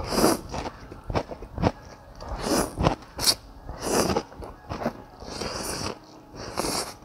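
A man slurping rice noodles from beef noodle soup close to the microphone: about five long slurps, with chewing and small wet mouth clicks between them.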